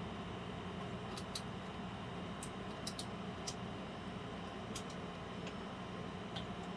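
Scattered small clicks and ticks, about nine spread irregularly over a few seconds, of a screwdriver turning a small screw loose inside a desktop PC case, over a steady low background hum.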